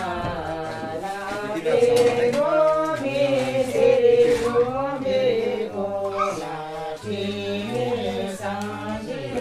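Slow chant-like singing, with long held notes that bend up and down at their ends.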